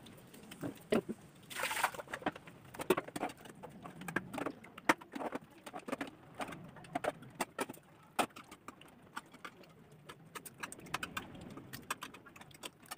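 People eating chicken feet curry with rice by hand: irregular small clicks and smacks of chewing, with fingers against steel plates. A short rush of noise comes about a second and a half in.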